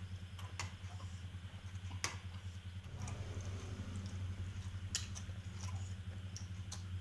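Close-up eating sounds: noodles slurped and a chicken foot chewed, with a few sharp clicks scattered through, over a low steady hum.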